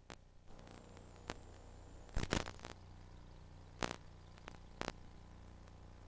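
Videotape playback noise: a steady mains hum and hiss with scattered clicks, and a louder burst of crackling a little past two seconds in as the tape's tracking breaks up. A faint high whine runs through the first couple of seconds.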